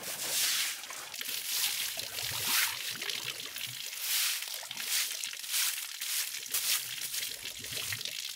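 Water sloshing and running across a concrete slab as it is washed down, with a straw broom sweeping through it in repeated swishing strokes about once or twice a second.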